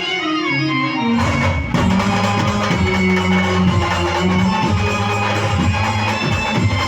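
A band playing live music. Held keyboard-like notes give way about a second in to the full band, with drums and percussion over steady held low notes, louder from there on.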